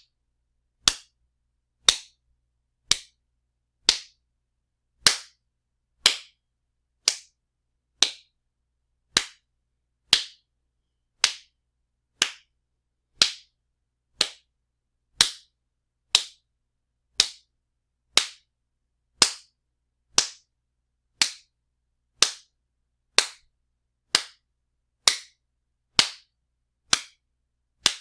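Strong wet slaps, one sharp smack about every second, each dying away quickly, with silence between them.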